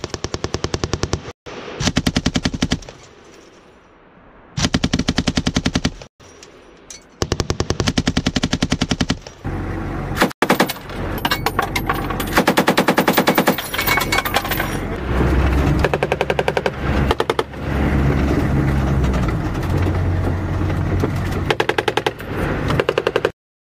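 Bursts of belt-fed machine-gun fire from M249 and M240B machine guns mounted on Humvees, one burst after another with short gaps between. A low vehicle engine drone runs under the later bursts, and the firing cuts off suddenly near the end.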